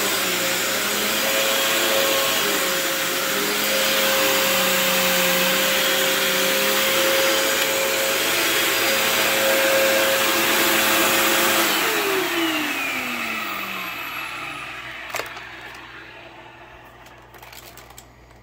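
Fantom Twister bagless upright vacuum cleaner running at full speed with a steady motor whine, then switched off about twelve seconds in, its motor winding down with a falling pitch. The motor sounds healthy; the owner puts its loudness down to the machine itself. A single click comes near the end.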